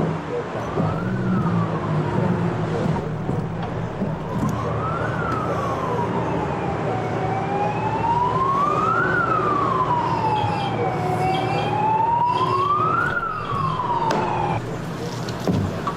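An emergency vehicle siren wailing, rising and falling slowly about every four seconds, over a low rumble of traffic. It cuts off abruptly near the end.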